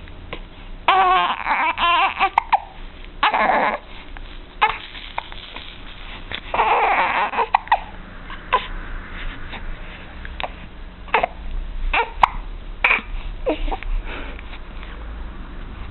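A five-week-old baby hiccuping over and over, short sharp hiccups about a second apart, mixed with a few fussy infant vocal sounds in the first half.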